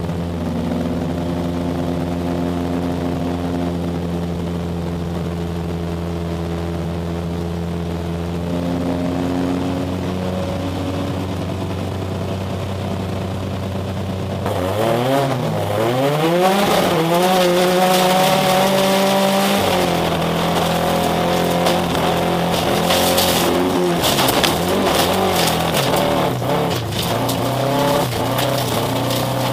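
Opel Astra 2.0 16v four-cylinder race engine idling steadily on the start line. About halfway through, it revs hard as the car launches and climbs through the gears, its pitch rising and dropping at each shift. Sharp clatter of loose stones hits the car as it races on gravel.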